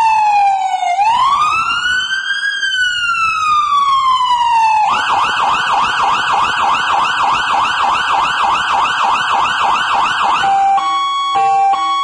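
Federal Signal PA300 electronic siren sounding through its bumper-mounted speaker: a slow wail falling, rising and falling again, then switching about five seconds in to a fast yelp of about three and a half sweeps a second, and near the end to an alternating two-note hi-lo.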